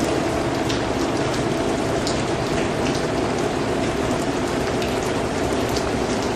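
Steady rain falling on a surface, a dense even patter with individual drops ticking sharply through it.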